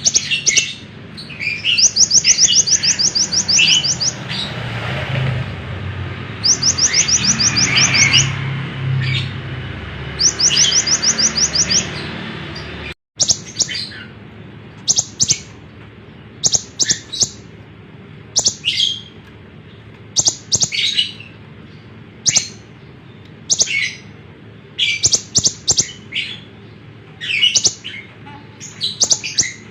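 An olive-backed sunbird (konin) singing hard. In the first half its song is fast, high, buzzy trills, given three times. After a break about halfway through come short, sharp chirps in quick succession.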